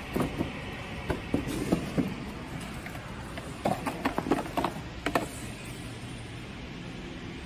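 Irregular light knocks and clatter of equipment being handled and packed into a cardboard box with foam inserts, thickest for a couple of seconds around the middle, over a steady background hum.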